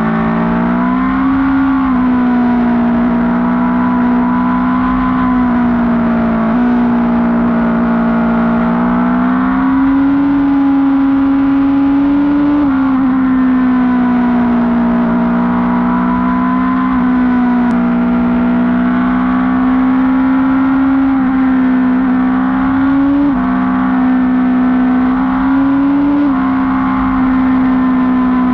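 Motorcycle engine running steadily at cruising speed, its pitch easing up and dropping back slightly every few seconds with the throttle.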